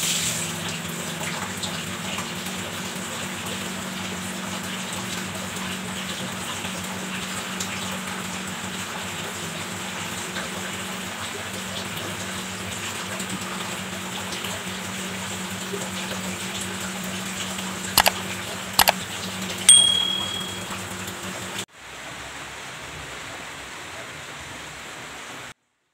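Water splashing and running over a steady low machine hum while laundry is wrung out by hand and loaded into a washing machine. A couple of sharp knocks and a short ringing clank come near the end, then it cuts to a quieter steady hiss.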